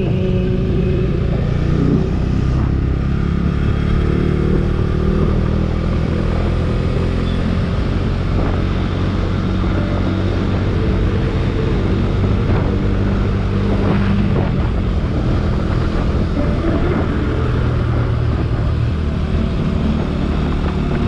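Motorcycle engine running steadily while riding.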